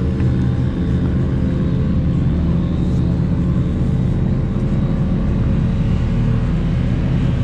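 A motor vehicle's engine running at a steady speed: a constant low hum that holds the same pitch throughout, with no revving.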